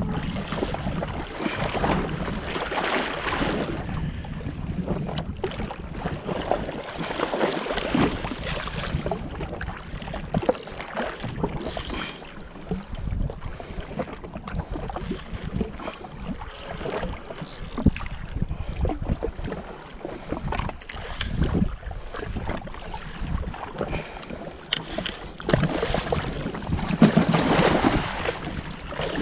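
Wind buffeting the camera microphone and sea water splashing around a jetski, in uneven gusts with scattered knocks.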